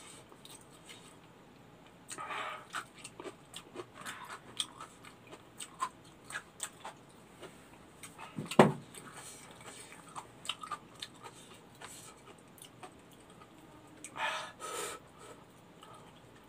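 Close-up eating sounds from a person eating rice with his fingers: chewing and mouth clicks scattered throughout, with a couple of short breathy rushes. A single louder knock about halfway through, like something set down on the table.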